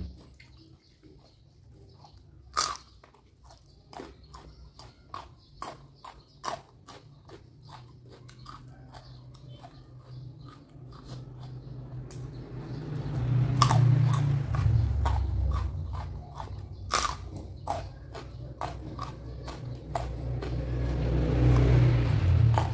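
A person chewing and crunching food close to the microphone, with many sharp crunches. There are two louder stretches of heavier chewing, about halfway through and near the end.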